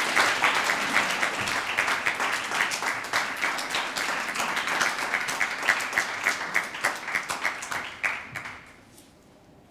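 Audience applauding, a dense patter of many hands clapping that dies away shortly before the end.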